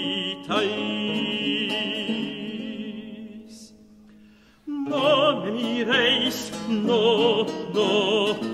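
A male singer accompanied by a plucked theorbo and baroque guitar performing a 17th-century Spanish song. A held sung note and the strings die away about three seconds in, leaving a short near-silent pause. Then voice and plucked strings come in again together, with the voice sung with vibrato.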